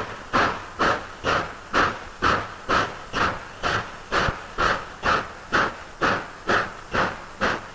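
Exhaust of a Pennsylvania Railroad 2-10-4 steam locomotive chuffing in an even beat of about two chuffs a second, the engine working hard with a heavy freight upgrade.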